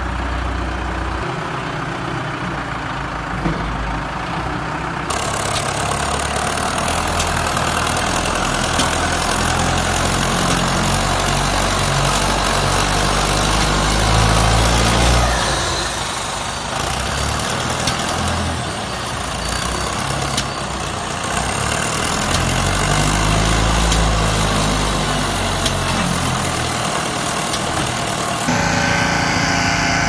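Engine of a self-loading mobile concrete mixer running and revving, its pitch rising and falling as the machine drives and works its loading bucket. The sound changes abruptly about five seconds in and again near the end.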